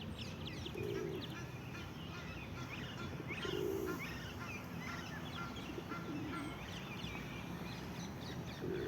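Ducks and geese on a pond giving four short, low calls spread a couple of seconds apart, over a steady chatter of small birds chirping.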